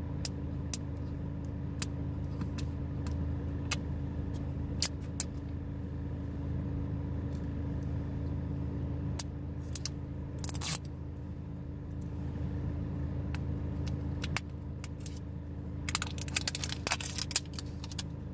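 Steady low hum of a car idling, heard inside the cabin, with scattered sharp clicks and crackles from a plastic iced-coffee bottle being handled and its cap twisted. A cluster of clicks comes near the end.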